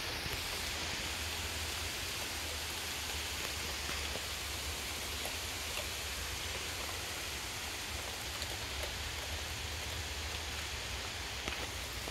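Steady rain falling on trees, grass and pavement, an even hiss with faint scattered drop ticks over a low rumble.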